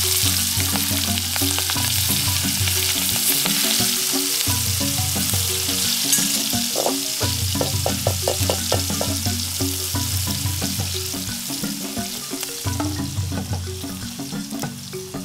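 Chopped chilies, shallots and garlic sizzling loudly in hot oil in a steel wok, the sizzle slowly dying down, while a wooden spatula stirs and scrapes the pan.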